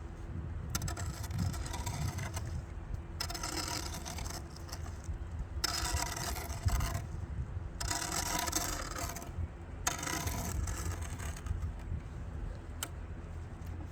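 A shovel scraping through wet concrete mix, in four or five separate strokes of about a second and a half each, over a steady low rumble in the background.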